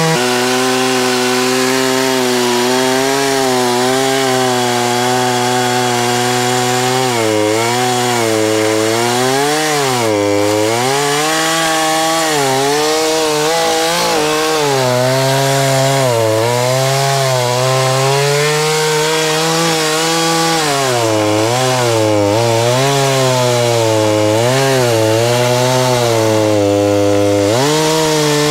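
Craftsman two-stroke gas chainsaw at full throttle cutting through a large log, its engine pitch sagging as the chain bites into the wood and recovering, again and again. The saw is being run on straight gas with no oil in the fuel and no air filter.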